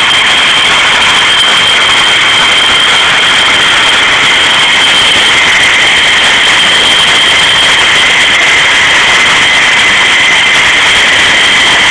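Fighter jet's turbine engine running at taxi power, a loud steady high-pitched whine over a rushing hiss.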